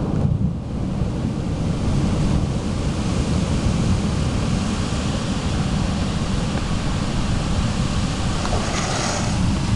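Thunderstorm: a long, continuous rumble of thunder with rain hissing over it.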